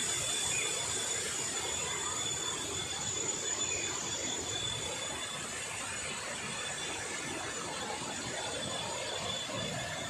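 Waterfall cascades rushing steadily, with a thin, steady high-pitched whine over the rush.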